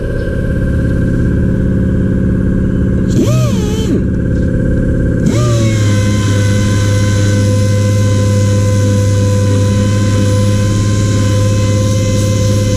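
A motor running with a steady hum; about three seconds in its pitch briefly swoops, and again just after five seconds, as if it starts up and comes back up to speed, then it holds steady.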